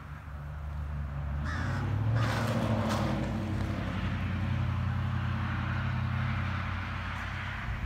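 A crow cawing, loudest about two to three seconds in, over a low steady engine hum.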